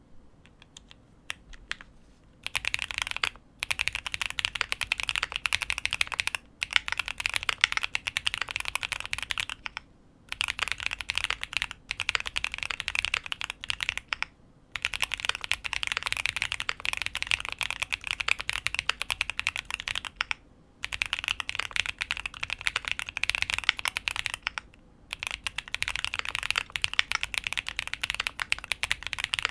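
Fast typing on a custom QK75 mechanical keyboard with lubed TTC Holy Panda tactile switches on an aluminium plate, fully foamed, with GMK keycaps. A few separate keystrokes first, then runs of rapid keystrokes broken by short pauses.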